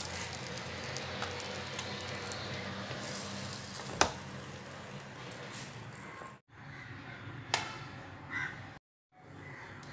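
The lid of an Abans contact grill (sandwich press) shutting with one sharp click about four seconds in, over a steady hiss; a smaller click follows a few seconds later.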